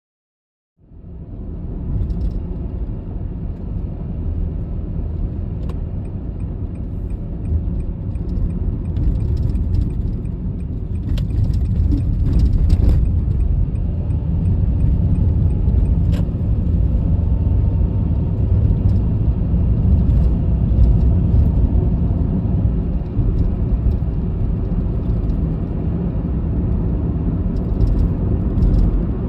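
Car driving along a road, heard from a camera inside the car: a steady low rumble of road and engine noise that fades in about a second in, with a few faint clicks and rattles.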